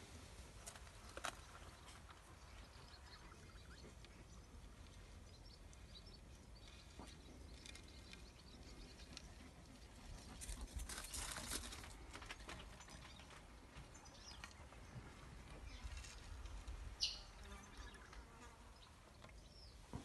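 Faint outdoor background noise: a low rumble with scattered small clicks and rustles, a louder rustle about halfway through, and a brief high chirp a few seconds before the end.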